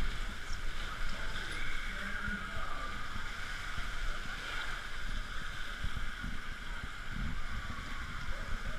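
Water rushing as a rider slides on his back around a water-slide bowl: a steady wash of water noise with scattered low thumps.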